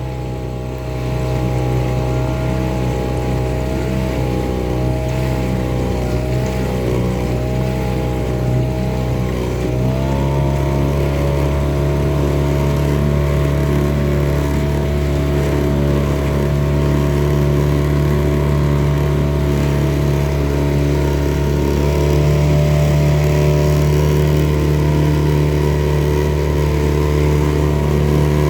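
Boat engine running steadily under way, its pitch rising about ten seconds in as it speeds up, then holding steady.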